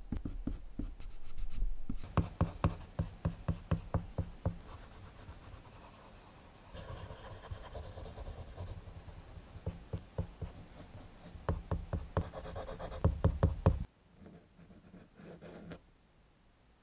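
Prismacolor colored pencil scratching on paper in quick, repeated short strokes as fur is shaded. The strokes stop suddenly near the end, giving way to a much fainter scratch of a metal dip-pen nib writing a signature.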